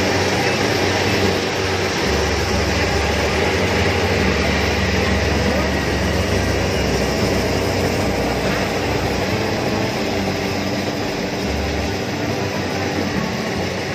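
Kubota DC-70 rice combine harvester running steadily while cutting and threshing rice, a dense continuous machine drone with a low engine hum. It grows slightly fainter near the end as the machine moves away.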